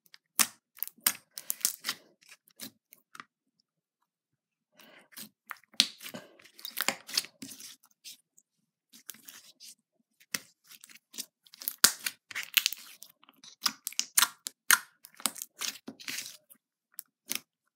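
Thick orange clear-base slime being kneaded and pressed by hand, giving clusters of sharp clicks and pops as it is squeezed and stretched. Two short silent pauses break the clicking, one a few seconds in and one about halfway through.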